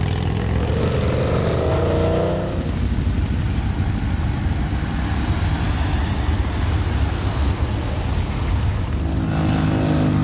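Motor vehicle engines running close by: a steady low rumble, with an engine note rising in pitch over the first two seconds and a new engine note coming in near the end.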